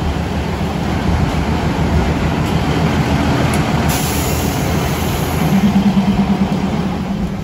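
Diesel passenger train idling at the platform: a steady low engine rumble, with a louder hum swelling about five and a half seconds in.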